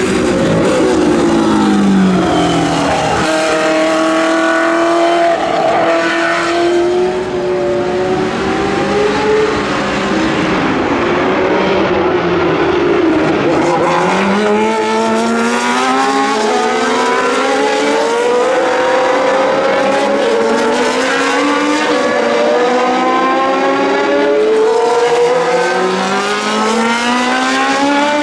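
Historic Formula 1 racing cars passing one after another at speed, the engine note climbing as they accelerate through the gears and dropping as they back off, several times over.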